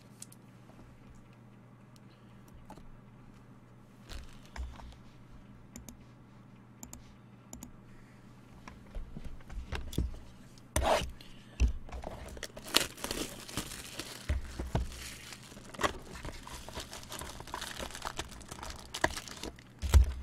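Plastic shrink-wrap being torn off a sealed 2017 Elite Extra Edition trading-card box, with irregular crinkling and tearing and the cardboard box handled. It starts with a few faint clicks and gets much louder about halfway in. A low steady electrical hum runs underneath.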